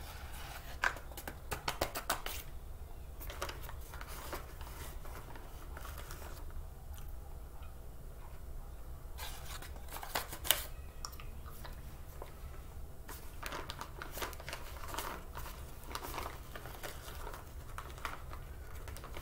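Clear plastic bag crinkling and a plastic spoon scraping inside it, with crunchy chewing of baked tapioca starch chunks, in bursts of crackles, the sharpest just past halfway. A low steady hum runs underneath.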